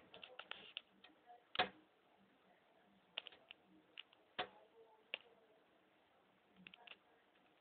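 Faint, irregular clicks and light taps, a dozen or so scattered over a few seconds, the loudest about one and a half seconds in, over a quiet room background.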